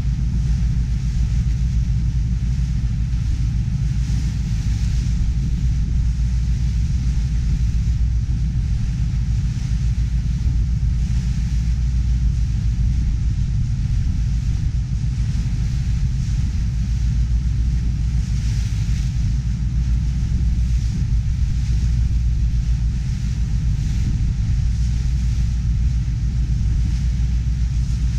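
A ferry's engine running with a steady low rumble. A fainter hiss above it swells and fades every few seconds.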